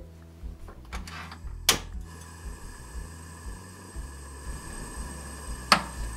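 Portable gas stove being lit: a sharp igniter click a little under two seconds in, then the burner's steady hiss of flame on high heat. Another sharp click comes near the end.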